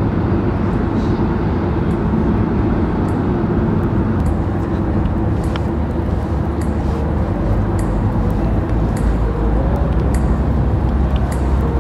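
Steady road and engine noise heard inside a moving car's cabin: a constant low rumble with a faint hum.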